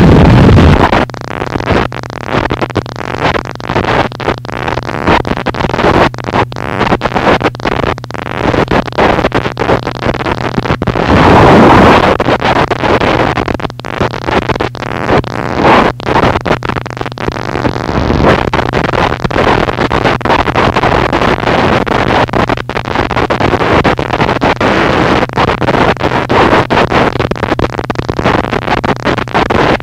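Harsh noise music: a dense wall of distorted static broken by frequent brief cutouts, with a steady low hum underneath from about a second in. A louder surge comes about eleven seconds in.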